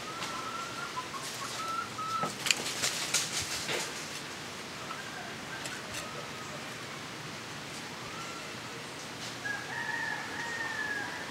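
A rooster crowing: a broken call in the first second and a half and a longer, held crow near the end. Between them comes a brief run of sharp clicks and rustles.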